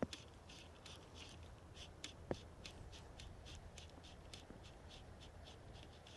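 Fly line being stripped in by hand through the rod guides to retrieve a streamer: a faint, even series of short swishes, about three a second. A soft knock comes a little after two seconds in.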